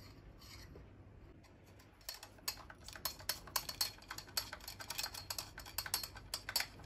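Screwdriver tightening a screw deep inside the metal buffer tube of an airsoft M4. From about two seconds in there is an irregular run of small, sharp metallic ticks, several a second.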